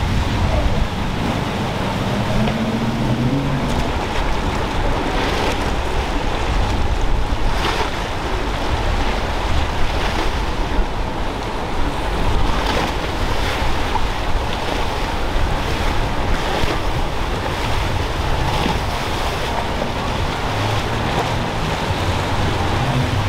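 Waves crashing and water rushing around outboard-powered center-console boats in rough inlet surf, with heavy wind noise on the microphone. An outboard engine's note rises in the first few seconds.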